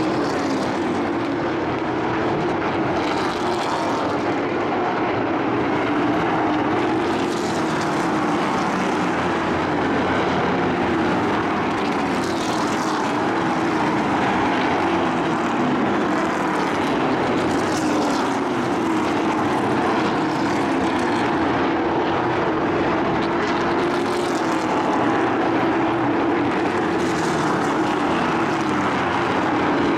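Pack of pickup-bodied race trucks running laps on a paved oval. Their engines drone together, pitch rising and falling through the turns, and swell each time trucks pass every few seconds.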